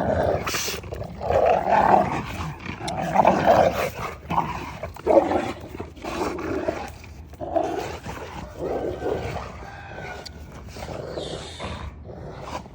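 Cane Corso dogs fighting, growling in repeated rough bursts that are loudest in the first half and ease off toward the end.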